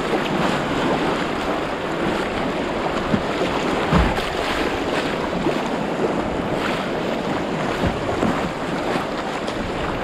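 River water rushing and splashing around a kayak on a rapid, with wind buffeting the microphone. A thump about four seconds in.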